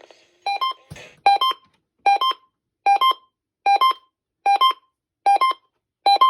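Electronic beeps repeating in an even pattern: a quick pair of short tones, low note then high note, about every 0.8 seconds, eight times. A brief low thump about a second in.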